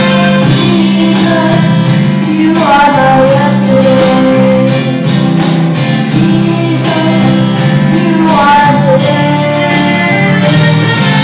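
Children's chorus singing a song with instrumental accompaniment, in long held phrases.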